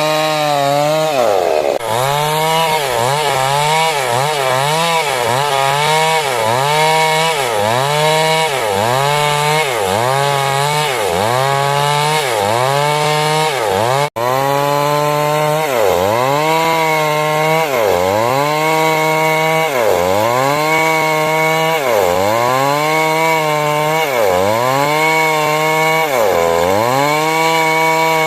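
Stihl MS 382 chainsaw cutting wood. The engine note drops under load and picks up again about once a second, with a split-second break halfway through.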